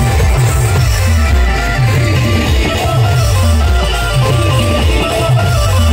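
Loud live Adivasi timli band music: big drums beating a steady, repeating rhythm under a heavy bass, with a stepping melodic lead line on top.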